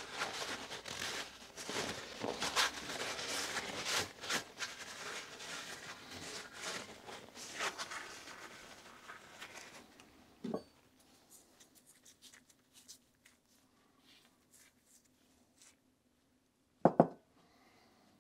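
Paper towel rubbing and crumpling against a greasy cast-iron brake caliper held in a vise, for about ten seconds. A single knock follows, then a louder double knock near the end.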